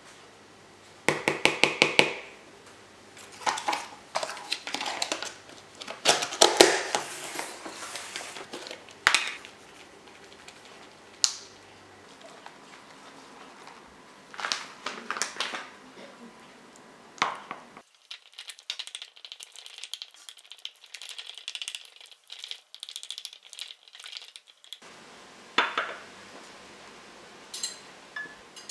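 A spoon tapping, scraping and clinking against a ceramic bowl as thick yogurt is scooped in and stirred, with a quick run of taps about a second in.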